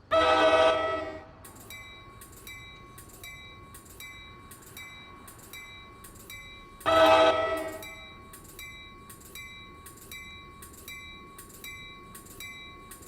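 Locomotive air horn sounding two short blasts, about a second each, one at the start and another about seven seconds later. Between them a grade-crossing bell dings steadily, about twice a second.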